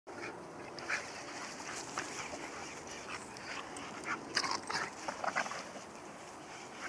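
Two dogs play-fighting on grass, with short scuffling and dog noises that cluster between about four and five and a half seconds in.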